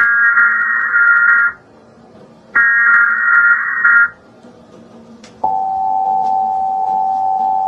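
Emergency Alert System signal: two bursts of SAME header data tones, each about a second and a half long, then about five and a half seconds in the steady two-tone attention signal starts and holds.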